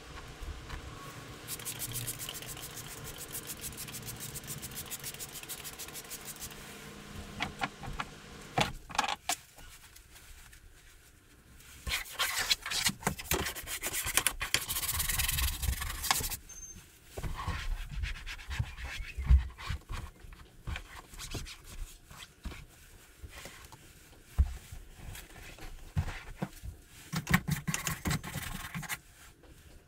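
Hand scrubbing and wiping on a semi truck sleeper cab's interior wall panel. Fast rubbing strokes run for the first several seconds, then comes a louder stretch of scrubbing, then scattered strokes and knocks, the sharpest about two-thirds of the way in.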